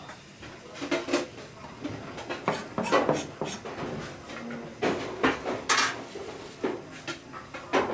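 Irregular knocks, clinks and clatter of seafood and utensils being handled at a fishmonger's cutting board and steel sink, with faint voices in the background.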